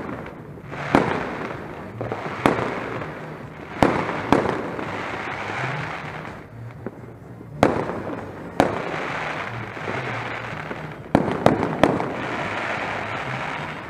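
Fireworks and firecrackers going off in the distance: about nine sharp, irregularly spaced bangs, with three in quick succession near the end, over a continuous rushing din.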